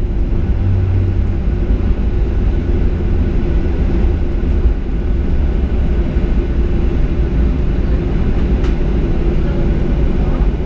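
Inside the cabin of a Boeing 737-800 rolling out after landing: a steady low rumble from its CFM56 engines and its wheels on the runway, with a faint steady hum.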